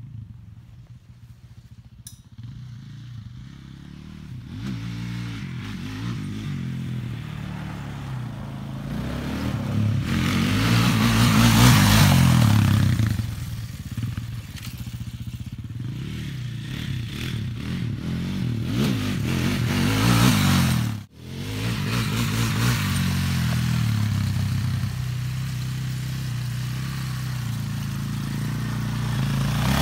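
Quad bike engine running and revving. It starts faint, builds to its loudest about ten to twelve seconds in, then eases back. The sound drops out abruptly for a moment about two-thirds of the way through before the engine is heard again.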